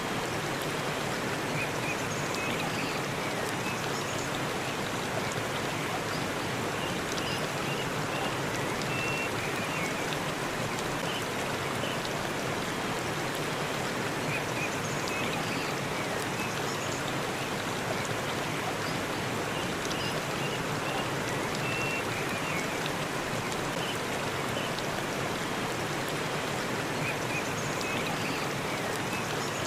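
Waterfall in a forest, its water rushing steadily, with a few faint short high chirps now and then.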